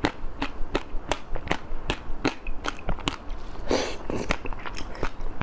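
Close-miked eating sounds: quick chewing with crisp clicks and crackles at about four a second, and a brief noisier, wetter sound just past the middle.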